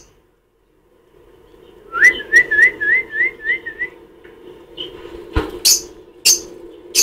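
A quick run of about seven clean, rising whistled notes, then a few short, sharp, shrill chirps from a peach-faced lovebird, over a steady low hum.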